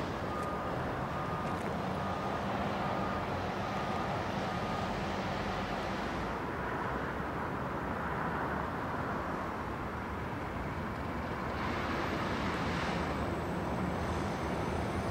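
Diesel locomotive hauling a freight train of box wagons, its engine running with a steady low hum, along with the general rumble of the train. A faint high beep repeats about twice a second during the first few seconds.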